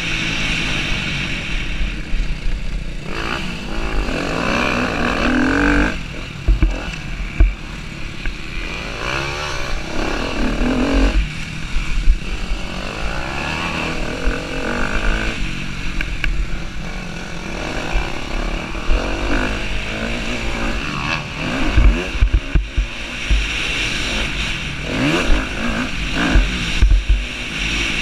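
Husqvarna TC250R motocross bike's engine revving up and falling back again and again as it is ridden hard around a dirt track, with wind rushing over the microphone. Sharp low knocks from the bumps of the track come through, more of them near the end.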